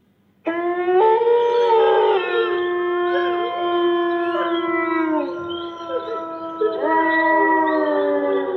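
Dire wolf sound effect: several wolf howls overlapping in a chorus, long held notes that slide a little in pitch. It starts about half a second in, with further voices joining about a second in and again near seven seconds.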